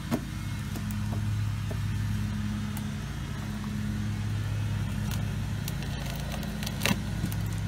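Small crowbar prying at the nailed lid of a pine wooden crate: scattered sharp clicks and creaks of wood and nails, the strongest about a second before the end, over a steady low hum.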